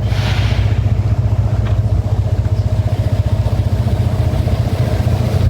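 An engine running steadily with a low, rapid throb and a steady hum above it.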